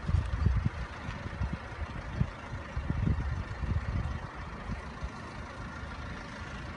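Heavy truck's diesel engine running at low revs, an uneven low rumble that swells and eases for the first few seconds, then settles steadier and quieter after about four seconds.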